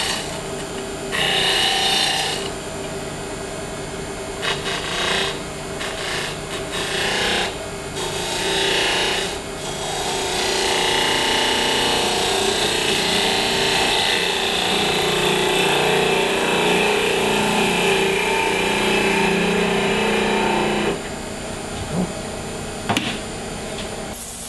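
Wood lathe spinning an olive wood box lid while a gouge cuts its end to flatten it: several short scraping cuts, then a longer steady cut that stops abruptly after about 21 seconds, followed by two sharp clicks.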